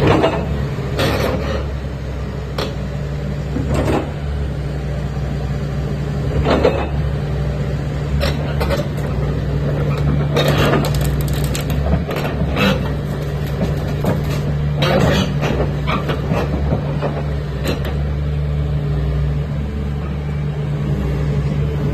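Caterpillar 330D L tracked excavator's diesel engine running steadily, with irregular clanks and knocks from the machine at work.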